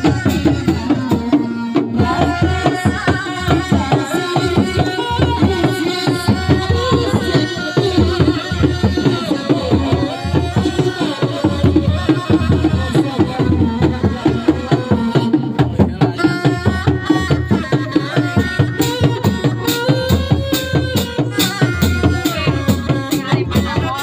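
A Sundanese reak ensemble of dogdog hand drums and larger barrel drums playing a quick, steady beat, with a wavering pitched melody line over the drumming.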